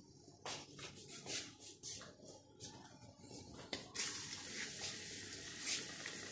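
Pakora batter of gram flour, onion and potato dropped by hand into hot oil in a steel pan: short uneven spurts of sizzling, then about four seconds in a steady sizzle as the fritter starts to fry.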